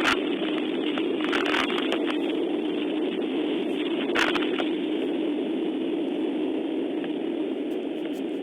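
Steady rain falling, with scattered sharp taps of drops striking close by.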